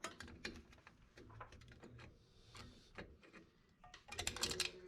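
Light metallic clicks and taps of a drum-brake hold-down spring and its retainer cup being worked onto the brake shoe, scattered at first, with a quick run of louder clicks about four seconds in.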